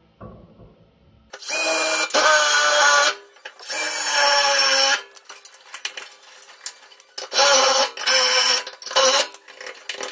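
Cordless drill with a twist bit drilling out spot welds in sheet steel. It runs in two long bursts, then several shorter bursts near the end.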